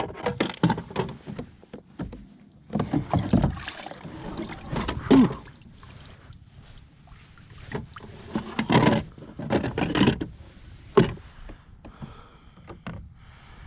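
Irregular knocks, clunks and splashes from a small boat on the water, coming in clusters every couple of seconds.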